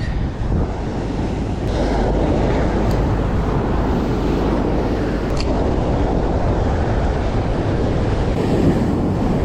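Wind buffeting the microphone over steady surf washing on the beach, with a few faint ticks.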